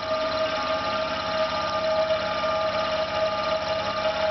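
Failing air compressor's electric motors running with a steady high whine and a fast low rattle of vibration. The compressor is overheating and no longer building pressure.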